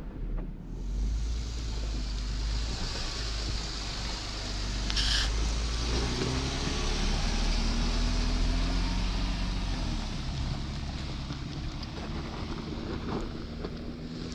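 Off-road vehicle engine running, its pitch slowly rising and falling, under a steady hiss. A short sharp sound comes about five seconds in.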